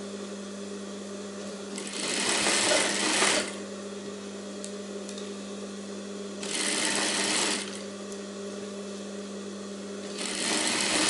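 Industrial sewing machine stitching a folded fabric strip onto a sleeve: its motor hums steadily, and three short runs of stitching, each about a second long, come in bursts about four seconds apart.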